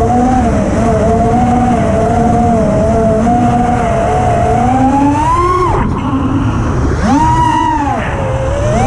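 Brushless motors and 5-inch propellers of an FPV racing quadcopter (TBS Mr. Steele Silk motors) whining loudly at a fairly steady pitch, then swooping sharply up and down with throttle punches from about five seconds in, dipping near six and eight seconds and climbing again near the end.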